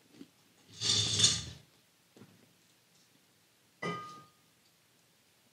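Glass wine bottles being handled and put away: a loud scraping rustle about a second in, then a sharp knock with a brief ringing tone a little before four seconds.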